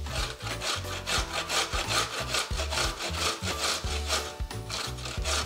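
Cooked beetroot being grated by hand on a stainless steel box grater, in a quick, even run of rasping strokes.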